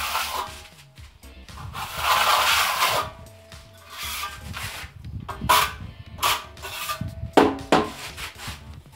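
A steel plastering trowel scrapes wet cement render across a wall. First come long sweeping strokes of about a second each, then shorter, sharper scrapes in the second half.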